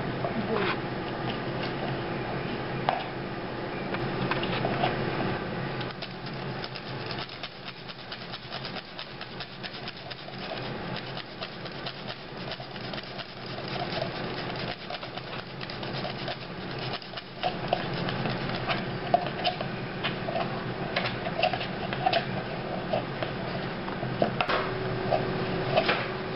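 Food-preparation handling noises: rustling and scraping with many small clicks and knocks. A steady hum sounds for the first few seconds and comes back near the end.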